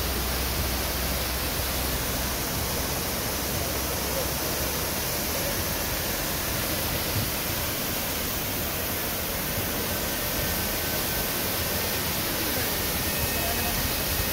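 Waterfall pouring down a rock face: a steady rush of falling and splashing water.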